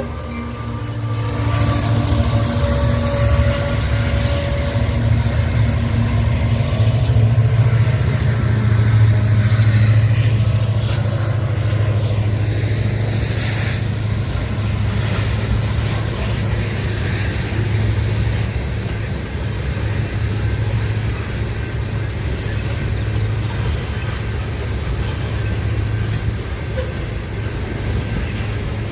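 Train passing with a steady low rumble, swelling a little several seconds in and easing off slightly toward the end.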